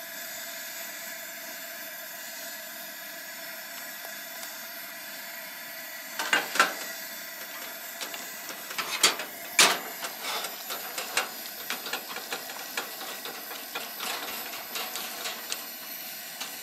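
Long chopsticks clacking and scraping against a metal pan while chicken pieces are stirred with mayonnaise, over a steady hiss. The knocks start about six seconds in, with two loud ones around nine seconds, then settle into lighter irregular ticking.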